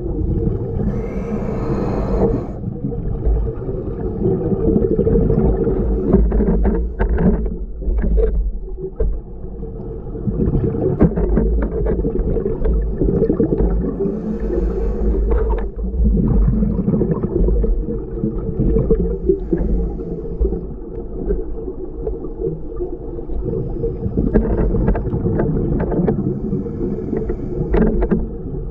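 Steady muffled hum of a boat motor, with a low rumble and scattered clicks and splashes of water.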